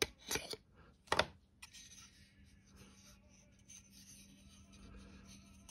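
Several sharp clicks in the first second and a half, the loudest about a second in, as an Irwin Quick-Grip one-handed bar clamp is released and taken off the glued wing joint of a wooden model airplane. Then faint rubbing as hands handle and turn the wooden model.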